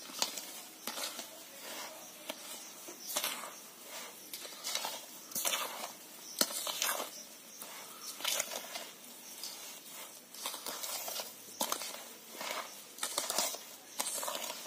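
Ladle stirring and scraping a thick batter of semolina, flour and yogurt around a bowl, in irregular strokes roughly one a second.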